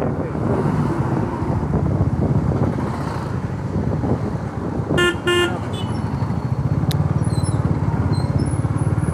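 Motorcycle engine running steadily at low riding speed, with road and traffic noise around it. About five seconds in, a vehicle horn toots twice in quick succession.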